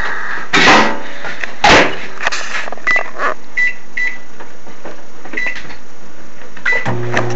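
Microwave oven being set going: a few knocks as the door is handled and shut, a series of short keypad beeps as the cook time is entered, then the oven starts running with a steady low hum near the end.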